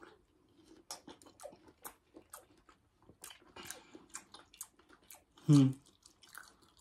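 A person chewing a juicy bite of honeydew melon: wet smacking and crunching clicks, several a second. A short hummed voice sound comes about five and a half seconds in.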